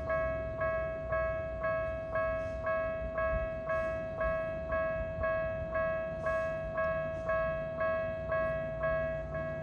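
Japanese railway level crossing alarm ringing: an electronic bell tone struck about one and a half times a second, evenly and without pause, over a low rumble.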